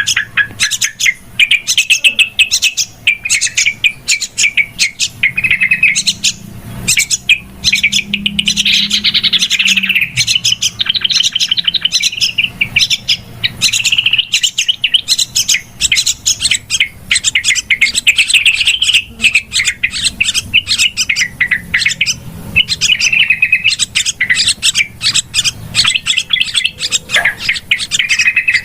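Yellow-vented bulbuls chattering noisily, a dense stream of rapid, bubbly call notes with hardly a pause, the rowdy calling used as a lure sound for trapping or training this species.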